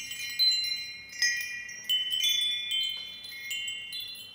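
Hand-held metal tube wind chime ringing, its hanging tubes swinging and striking several times in a row, each strike adding high, overlapping bell-like tones that fade slowly.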